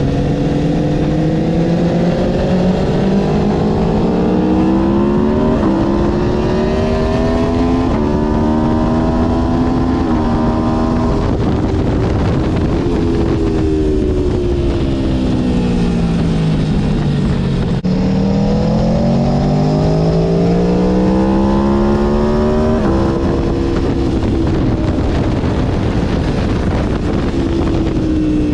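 Aprilia Tuono V4 1100 motorcycle's V4 engine at full throttle, pitch climbing through several quick gear changes. About twelve seconds in, the pitch falls smoothly as the bike slows, then climbs hard again. Heavy wind rush is under it all.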